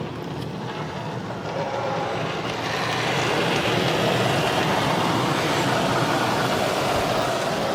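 Water Wizard 2.0 automatic car wash spraying water over a car, a steady rushing wash of noise that grows louder over the first few seconds, then holds.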